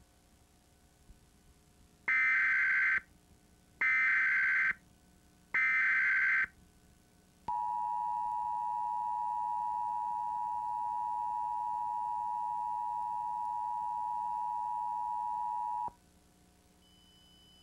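Emergency Alert System header: three short bursts of warbling SAME data tones, about a second each. Then comes the steady two-tone attention signal, held for about eight seconds before it cuts off.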